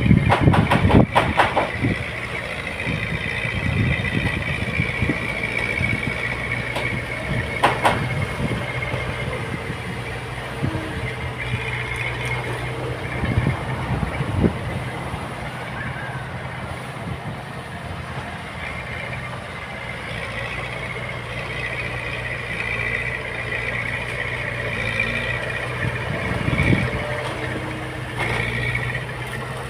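Heavy construction machine's diesel engine running steadily, with a wavering high whine over it and several metallic knocks, the loudest cluster in the first second or so.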